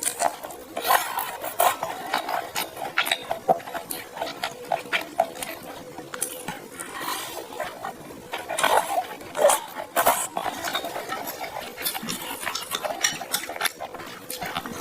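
Eating sounds of rice noodles being slurped and chewed, with utensils tapping and clinking irregularly against the plate.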